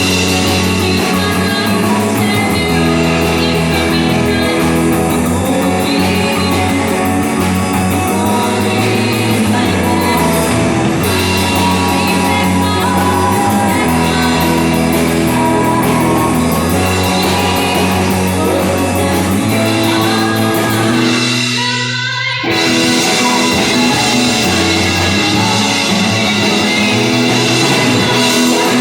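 Live rock band playing with drums, guitar and singing. About three-quarters of the way through, the band stops for a moment, then comes back in together.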